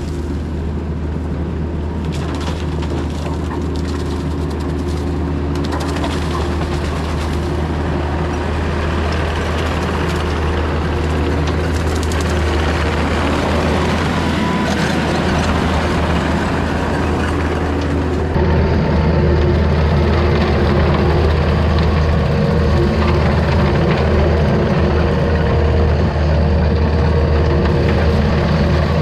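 Takeuchi TL250 compact track loader's diesel engine running at a steady high throttle, with its hydraulic brush cutter spinning while it mows wet brush. About 18 seconds in, the drone gets louder and closer.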